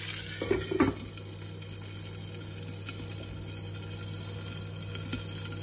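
Enamel pot lid clattering down onto the pot with a short metallic ring, then the snow peas sizzling quietly inside the covered pot.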